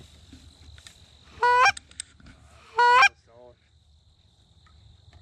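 Hand-blown goose call giving two loud honks about a second and a half apart, each breaking sharply from a low note to a high one, then a fainter, lower honk. The calls are made to draw passing geese toward the decoys.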